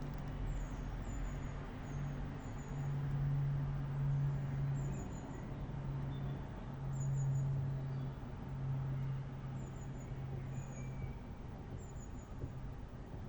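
Low, uneven hum of street traffic that swells and fades in stretches of a second or two, with faint high chirps of small birds in short runs of two or three notes throughout.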